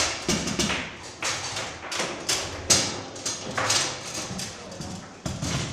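Table football on a Bonzini table: the ball knocking against the wooden players and the table walls, with rods clacking, in a run of irregular sharp knocks.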